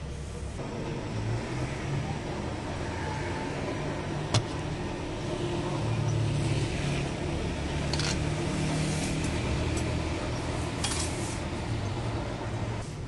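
A steady low rumble with a single sharp click about four seconds in and a few fainter clicks later.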